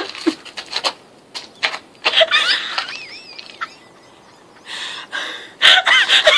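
Girls laughing: breathy bursts and a few high-pitched squeals, a short lull in the middle, then loud high-pitched laughter returning near the end.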